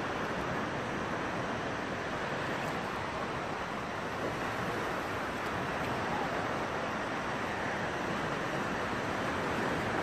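Steady rushing noise of shallow sea water and wind at the shoreline, even and unbroken.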